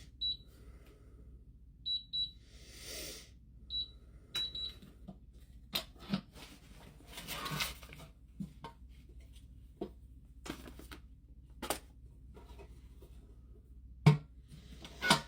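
Keypad of a digital safe beeping six times as a code is entered, then clicks and knocks as the safe is opened and the door is handled and shut, the loudest two knocks near the end.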